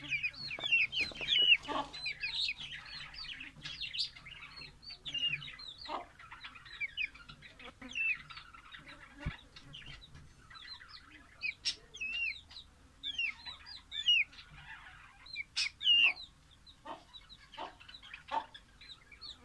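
Young Vietnamese, Kala Nawab and Shamo cross gamefowl chicks peeping and clucking: many short, high calls that slide down in pitch, coming irregularly and overlapping.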